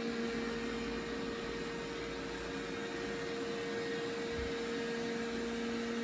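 Roborock S5 robot vacuum running on carpet in spot-clean mode: a steady motor hum with a constant hiss.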